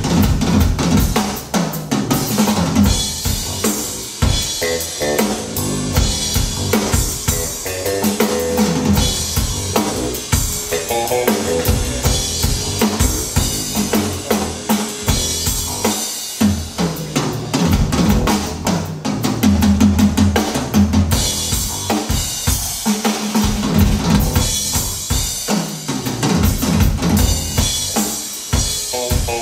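Recorded music driven by a drum kit, with kick drum, snare and rimshots over a pitched bass line, played back through PMC studio-monitor loudspeakers.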